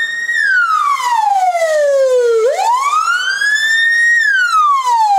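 Ambulance siren wailing, its pitch sliding slowly down and back up in a repeating cycle of about four seconds.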